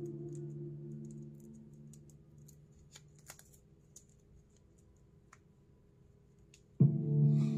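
Background guitar music dies away over the first couple of seconds, leaving faint, scattered clicks and rustles of hands handling a braided earphone cable and its metal fittings. The guitar music starts again abruptly and loudly near the end.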